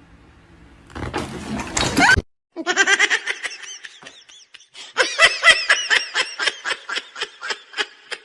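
A person laughing hard in rapid, high-pitched bursts, in two bouts with a short break between them. A loud, noisy sound rising in pitch comes first, about a second in.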